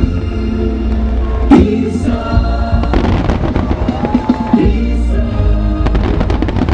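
Aerial firework shells bursting and crackling over music with singing. A loud bang about one and a half seconds in, then dense crackling through the middle and again near the end.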